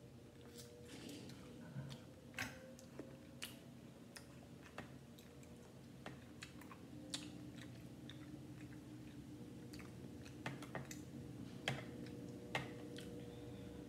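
Close-miked eating sounds: chewing and mouth clicks on a seafood boil, with scattered sharp clicks and soft squishes as a gloved hand picks through the food in a glass bowl. A faint steady hum runs underneath.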